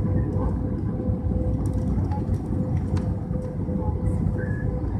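Jet airliner cabin noise on approach: a steady low rumble of the engines and airflow, with a faint constant hum on top.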